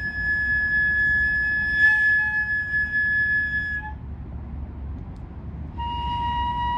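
Ryuteki, the Japanese gagaku bamboo transverse flute, holding a long high note that breaks off about four seconds in; after a short pause a lower long note begins near the end. A low rumble runs underneath.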